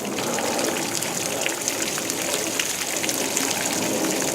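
Simulated steady rain: water sprinkled onto a model yard and French drain, pattering in many small drops and trickling.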